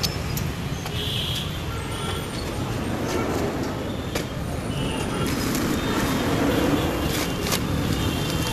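Steady road traffic noise from a busy street, with a few short knocks scattered through it.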